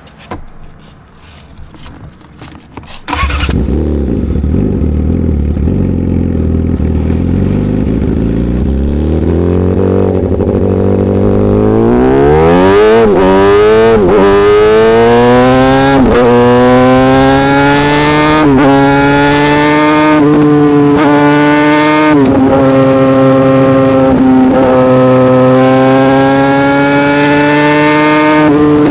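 Yamaha YZF-R6's inline-four engine through an SC-Project aftermarket exhaust, starting up about three seconds in after a few faint clicks, then idling. From about twelve seconds the engine speed climbs in a series of rises, each broken by a brief dip in pitch, then holds a steady high drone.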